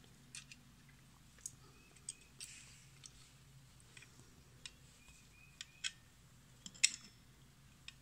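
Scattered light metallic clicks and clinks of Vise-Grip locking pliers and nails being handled while a snap ring is worked onto a wheel axle, the sharpest click about seven seconds in, over a faint steady low hum.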